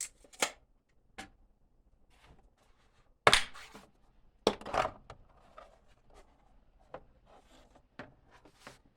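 Clicks and knocks of a socket set and its packaging being handled, with a sharp knock about three seconds in, a second cluster about a second and a half later, and lighter ticks between.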